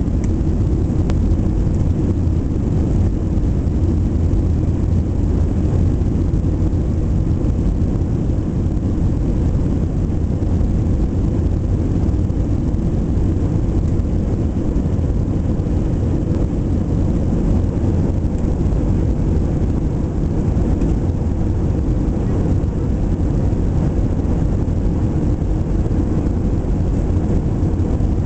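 Steady low-pitched drone of a Boeing 737-800 airliner's cabin, the noise of the engines and air moving through the plane, unchanging throughout.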